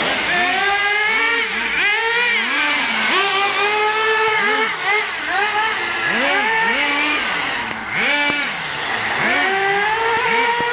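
Radio-controlled car's motor revving up and down over and over as it is driven, its pitch rising and falling about once or twice a second.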